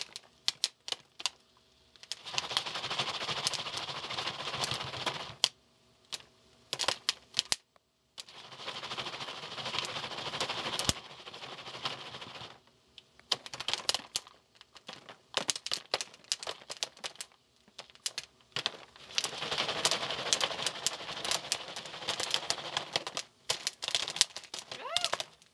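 Jiffy Pop popcorn popping in its foil pan on a stove burner: sharp pops, singly and in quick clusters. Between them come stretches of rushing noise as the pan is shaken over the heat.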